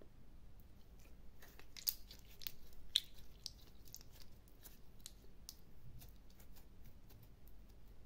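Clear yellow glitter slime being stretched and squeezed by hand, giving a run of sharp, sticky clicks and small pops. They come thickest and loudest from about one and a half to three and a half seconds in, then thin out.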